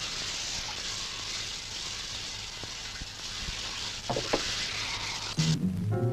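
Shower spray hissing steadily. It cuts off suddenly about five and a half seconds in, as low music comes in.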